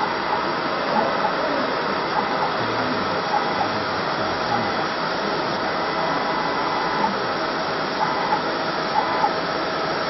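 Steady whirring hum of a fiber laser marking machine's cooling fans, with faint brief tones and light ticks now and then.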